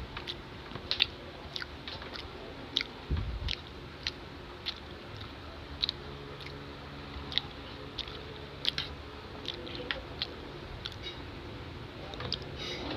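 Close-miked mukbang eating sounds: a person chewing and biting pancit canton noodles and kwek-kwek, with irregular wet clicks and smacks. A faint steady hum runs underneath.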